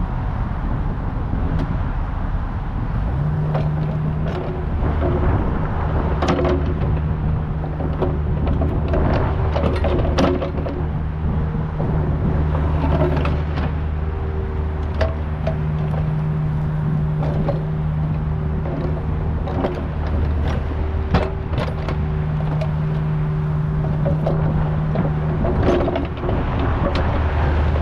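Kubota U55 mini excavator's diesel engine running steadily under working load, its note stepping up about three seconds in, with scattered knocks and clanks from the bucket and machine working dirt.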